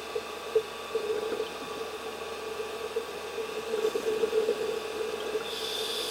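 Underwater scuba sounds: a diver's regulator breathing, with irregular bubbling throughout and a rush of exhaled bubbles starting near the end.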